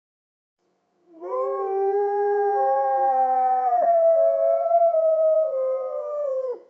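Wolf howling: one long, level call of about five and a half seconds that starts about a second in and falls in pitch as it ends.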